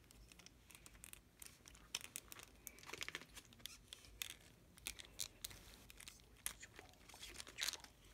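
Faint, scattered clicks and crinkles of a hard plastic transforming toy figure and its packaging being handled, with a quick cluster of clicks about three seconds in and another near the end.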